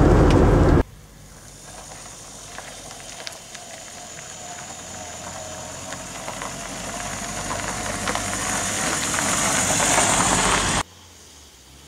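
Loud engine and road noise inside a car's cabin for the first second. Then a classic Mini, heard from outside, drives slowly up a gravel lane towards the microphone, its small engine and tyres on gravel growing steadily louder for about ten seconds before the sound cuts off abruptly near the end.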